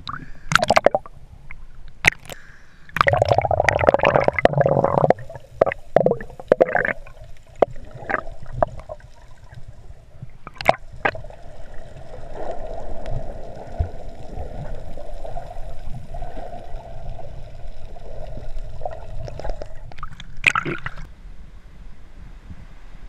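Seawater sloshing and gurgling against a GoPro's waterproof housing at the surface and under water: irregular splashes and knocks through the first ten seconds, then a steadier muffled underwater rush, with another short splash about twenty seconds in.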